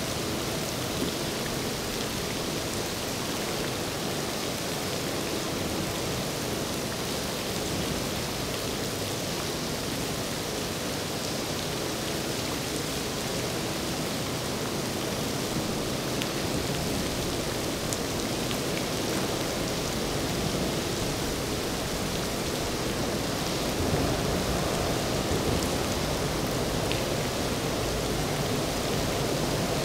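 Steady hiss of heavy rain, with no engine note standing out; a low rumble grows louder in the last few seconds.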